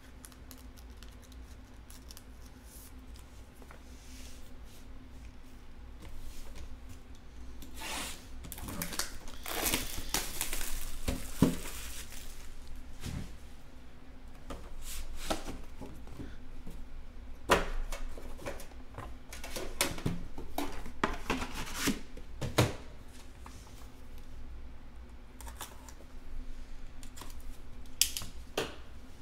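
Hands opening a trading-card box: rustling and tearing of wrapping and cardboard, densest a few seconds in, then scattered taps and knocks as the box and the inner blue box are handled and set on the table.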